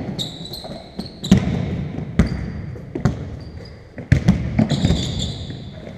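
Basketball bouncing on a hardwood gym floor in irregular dribbles, each bounce echoing in the hall. There are high squeaks of sneakers on the floor near the start and again about five seconds in.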